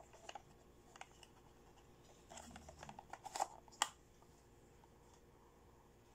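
Small plastic toy trolley suitcase handled by hand: light plastic clicks and rattles, with two sharper clicks about three and a half seconds in.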